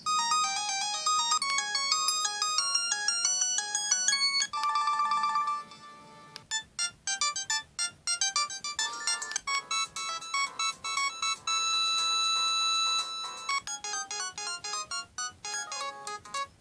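LG GS101 mobile phone's built-in polyphonic ringtones played through its small speaker, several short electronic melodies previewed one after another as the ringtone list is scrolled, each tune breaking off when the next one starts.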